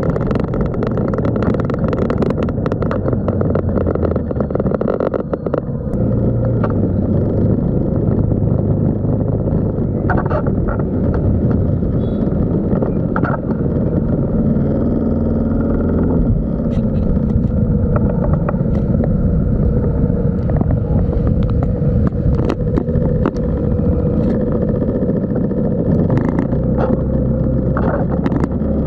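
A motorbike engine running steadily while riding along a road, with wind rumbling over the microphone, and small clicks and rattles.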